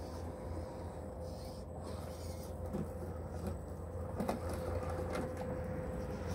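Redcat Gen8 RC crawler's electric motor running with a thin steady whine as it crawls over sand and rock, over a low wind rumble, with a couple of sharp clicks about four and five seconds in.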